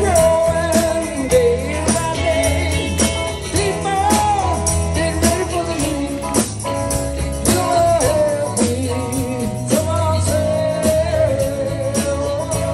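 Live rock band playing: lead singing over electric guitars, bass and drums, with a steady beat and jingling percussion.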